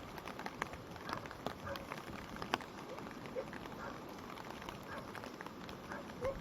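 Swollen stream after heavy rain rushing past: a steady wash of flowing water with frequent small splashes and gurgling ticks.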